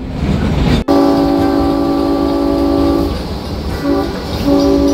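Locomotive air horn sounding a chord of several tones: a long blast from about a second in, a short blast, then another long blast near the end. This is the train's warning as it comes up to a road crossing.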